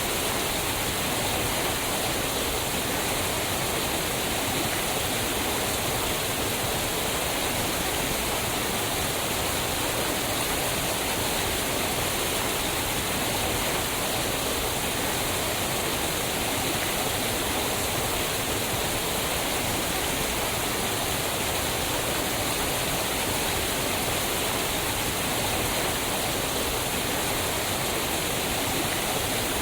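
Waterfall: water falling and rushing over rocks in a steady, unbroken roar.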